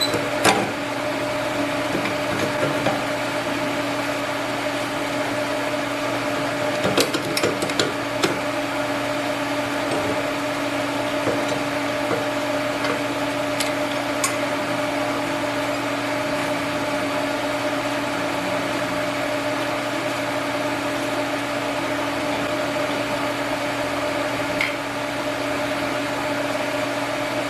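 Steady electrical hum from mains-powered shop equipment, with a few light clicks and knocks about seven to eight seconds in and a couple more later.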